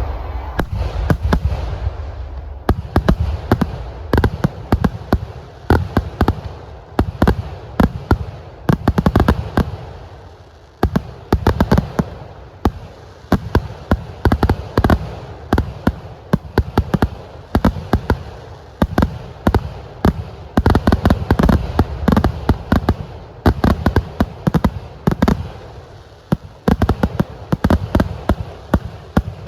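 Kerala temple-festival fireworks (vedikkettu): a rapid, unbroken string of firecracker bangs, many each second. It eases briefly about ten seconds in, then builds back to a dense volley.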